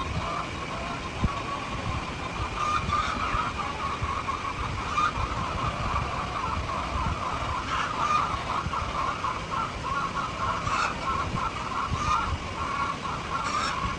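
A large flock of hens clucking and calling together in a continuous overlapping chorus, with a low rumbling noise underneath.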